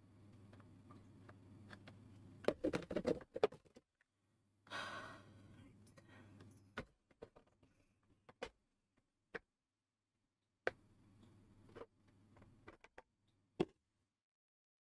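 Small plastic miniature parts clicking and tapping as they are handled and pressed into place, with a cluster of clicks about 2.5 to 3.5 seconds in and single sharp clicks later on. A person sighs about five seconds in.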